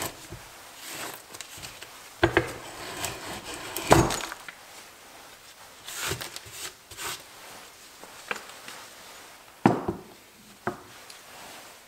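Hand brace and 1-inch auger bit worked against a softwood board: a few sharp wooden knocks, the loudest about four seconds in, with lighter scraping and clatter between. Near the end the bit is set to fresh wood with a faint scrape.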